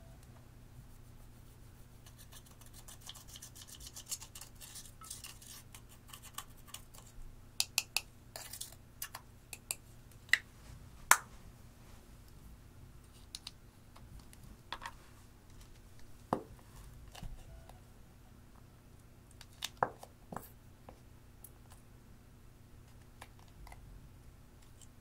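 Pressed powder eyeshadow being scraped and crumbled out of its plastic compact, a dry crackly scraping starting about two seconds in. After it come scattered sharp taps and clicks, about ten of them, spread through the rest.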